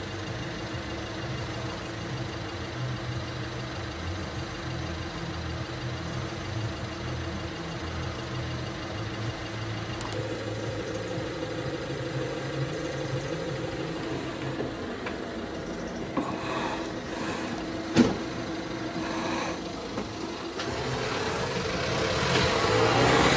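A vehicle engine idling, a steady hum, with one sharp click about eighteen seconds in. The sound grows louder and noisier near the end.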